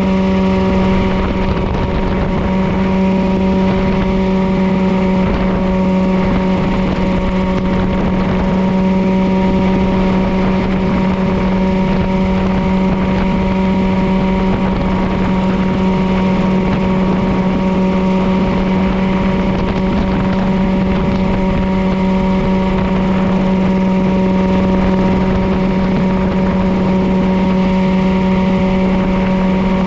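Mirocopter SCH-2A coaxial ultralight helicopter in cruise flight, heard from on board: engine and rotors running at a constant pitch, a loud, even drone that does not change.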